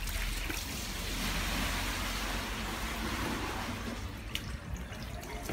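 TW-980B centrifugal vegetable dehydrating machine running with a load of lettuce: a steady low motor hum under an even rushing hiss as water is spun out of the leaves.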